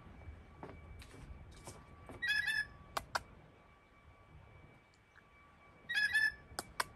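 Blue jay giving a liquid, bell-like two-part "lul-lu" call twice, about three and a half seconds apart. Each call is followed by a pair of sharp clicks.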